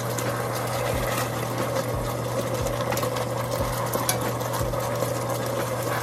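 Soy sauce bubbling and sizzling as it reduces around chunks of pork in a pot on an induction cooktop, a steady noise over a low hum, with light clicks of metal tongs turning the meat.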